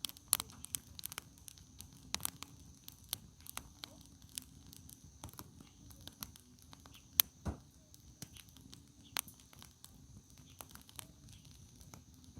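Wood campfire crackling, with irregular sharp pops and snaps; the loudest snap comes a little past halfway.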